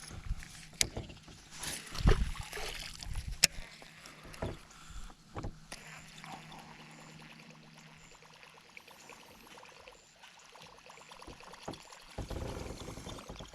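Sharp knocks and clicks on a fishing boat with light water sounds as a small bass is handled, with a faint low steady hum for a few seconds.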